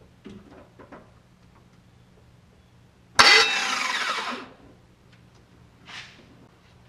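Starter motor on a 6.0 V8 with a 4L80 flex plate, hit briefly: it whirs sharply for about a second, then winds down with a falling whine. It is spinning without catching the flex plate gear, which the owner suspects is a spacing problem or a Bendix that isn't popping out.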